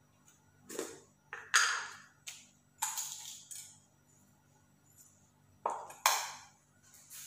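Kitchenware clinking: a spoon knocking against a ceramic bowl and seasoning containers while seasonings are spooned into chili dipping sauce. It is a string of short, sharp clinks and knocks in two clusters, some with a brief ring.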